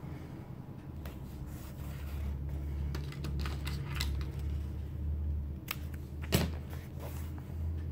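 Washi tape being handled, torn and pressed onto journal paper: light crackling and rustling about three to four seconds in, then a few sharp clicks, the loudest about six seconds in, over a steady low hum.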